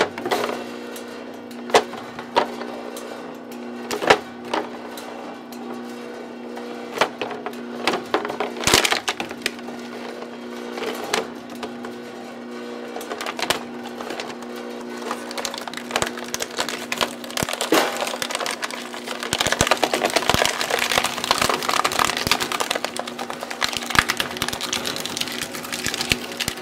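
Homemade twin-shaft plastic shredder, driven by an electric motor through a gearbox, chewing up a plastic bottle: sharp cracks of plastic snapping every second or two as the blades bite, turning into dense continuous crunching over the last several seconds as the bottle breaks into pieces. A steady hum runs underneath.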